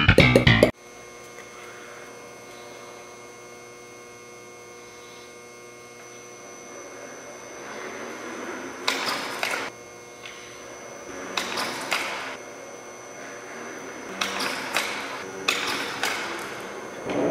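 Music cuts off abruptly under a second in, leaving a steady electrical hum. Several short noisy bursts come and go in the second half.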